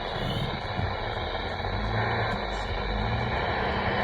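Steady hiss of static from a NOAA weather radio receiver, with a faint low hum, after the test announcement ends.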